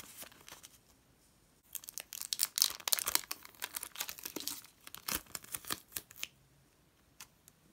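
Glossy homemade paper sticker being peeled off its white backing paper: a dense crackling and tearing of paper and tape, starting about two seconds in and dying away after about six seconds.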